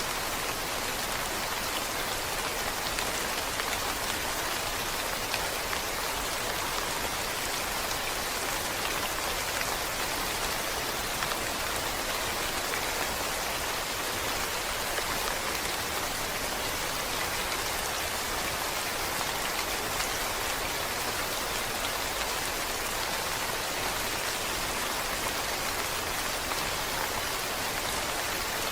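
Steady rain falling, an even hiss of many drops pattering on a surface, with no change in strength.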